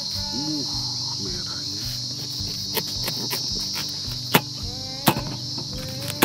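A knife cutting a watermelon into wedges on a cutting mat, with a few sharp knocks as the blade hits the board, the two loudest about four and five seconds in. Insects chirr steadily at a high pitch throughout.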